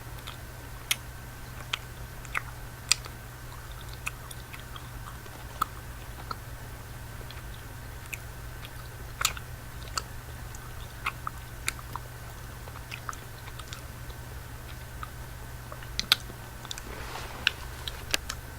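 Close-miked chewing of a Cow Tails chewy caramel candy, with scattered sharp, wet mouth clicks about once a second. A steady low hum runs underneath.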